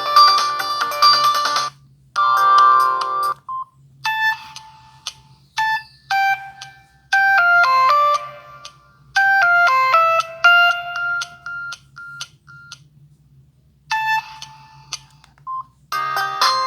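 Stock ringtones of a Samsung SGH-T459 Gravity phone, played one after another: one ends about two seconds in, a short chord phrase follows, then a sparse melody of short beeping notes with gaps between them, and a new tone starts near the end.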